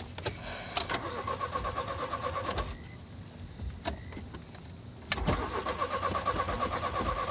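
A car's starter motor cranking the engine in two tries, about two seconds and then about three seconds, without the engine catching, a click before each. The car has run out of gas.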